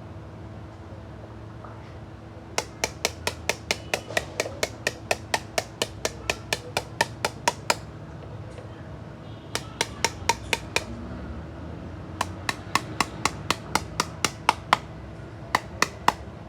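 A hammer striking a hard object in rapid, evenly spaced blows, about five a second, in four runs with short pauses between them. A steady hum runs underneath.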